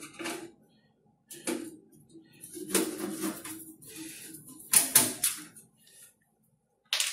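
Screwdriver taking out the cover screws at the back of a desktop computer case: intermittent metal clicks, scrapes and clatter in several separate bursts.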